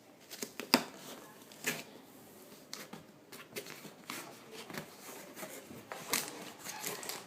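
Action-figure packaging of plastic and cardboard being handled: scattered clicks and taps, the sharpest a little under a second in, over a low rustle.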